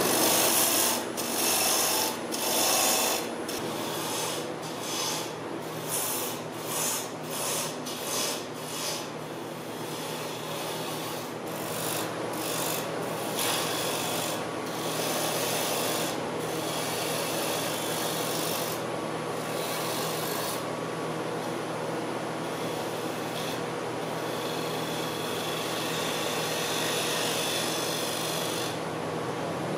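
Wood lathe running while a turning tool cuts a tenon on a small spinning wood blank, the shavings hissing off the edge. The cuts come as a quick run of short passes for about the first nine seconds, then settle into steadier continuous cutting, with the lathe's faint steady hum beneath.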